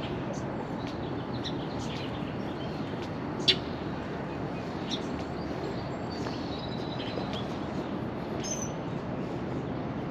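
Songbirds chirping here and there over a steady low rumble of distant city noise. One short, sharp sound about a third of the way in stands out, much louder than the rest.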